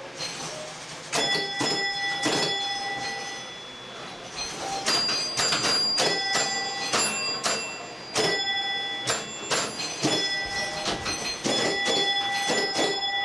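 Electromechanical pinball and bingo machines running: an irregular run of sharp mechanical clacks from relays and stepper units, many followed by bells ringing out, starting about a second in.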